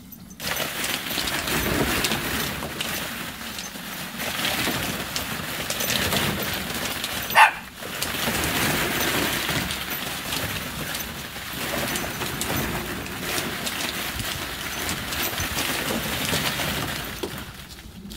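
Plastic ball-pit balls clattering and rustling continuously as a dog bounds through them. About halfway through comes one brief, loud, high-pitched sound.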